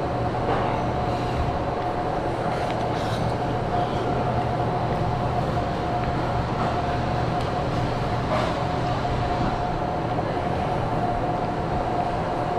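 Steady machine drone: a constant low hum with a steady mid-pitched whine over it, at an even level throughout.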